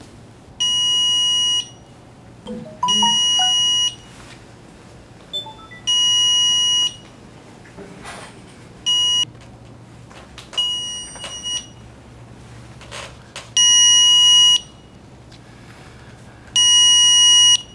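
Water leak detector's alarm buzzer beeping: about seven long, high-pitched beeps, roughly three seconds apart, signalling that water has been detected.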